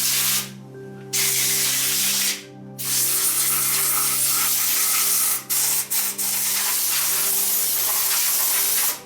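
Pressurised spray nozzle hissing loudly in on-off bursts, cut several times for a second or less, over a steady low hum.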